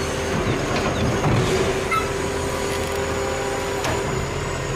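Automated side-loader garbage truck running at the curb while its hydraulic arm lowers an emptied cart back down, a steady engine and hydraulic drone with a held tone and a few faint knocks.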